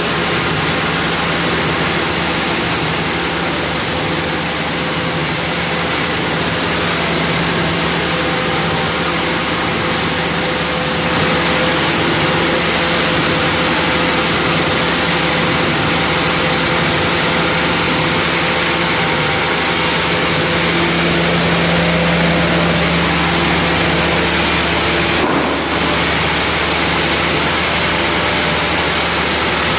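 An engine running steadily under a loud, even rush of noise, with a low hum that holds throughout. The sound dips briefly about 25 seconds in.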